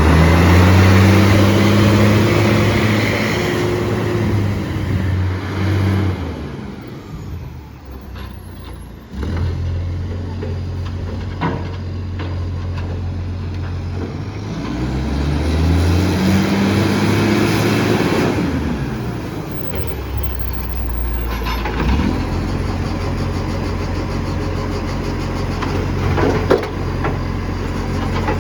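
Garbage truck's diesel engine with a massive exhaust leak, running loud and rough: it revs up and holds high for several seconds twice, dropping back to a lower steady run in between and afterwards. A few sharp knocks are heard over it.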